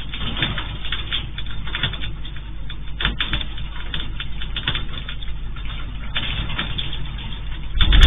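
A steady low hum with many irregular small clicks and ticks, heard through a security camera's microphone. Just before the end a loud, deep rumble sets in abruptly as the 7.7-magnitude earthquake's shaking begins.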